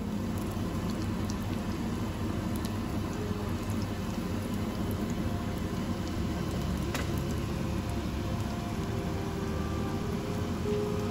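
Tuna fish kebab patties shallow-frying in hot oil in a pan: a steady sizzle with scattered crackles and pops.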